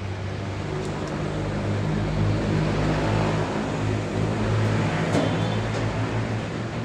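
A motor vehicle's engine running, a steady low hum that grows louder through the middle and eases off near the end.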